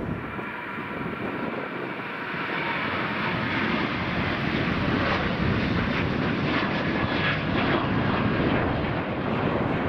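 Jet airliner's engines at takeoff thrust: a steady rushing engine noise with faint high whining tones, growing a little louder from about three seconds in.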